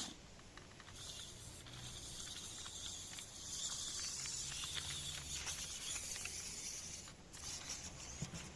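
Small 3D-printed RC car driving on the ground: a steady hiss that swells through the middle, with a faint low hum and scattered small clicks.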